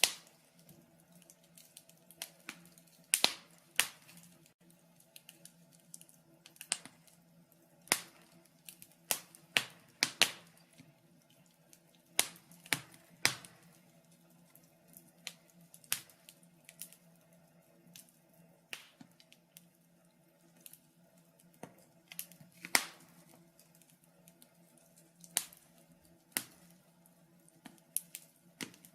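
Wood fire in a fireplace crackling: irregular sharp snaps and pops, some much louder than others, over a faint steady hum.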